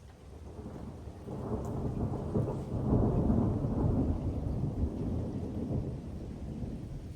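A long roll of thunder that swells over about two seconds, is loudest around three seconds in, and fades out over the next few seconds.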